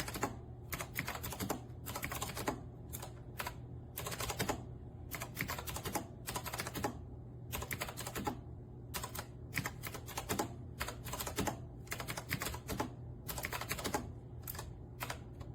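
Fast, continuous typing on a retro typewriter-style mechanical keyboard: rapid clicky keystrokes in quick runs with short pauses between them, over a faint steady low hum.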